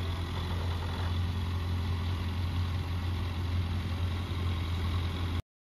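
Heavy truck engine running steadily with a deep, even drone, cutting off abruptly near the end.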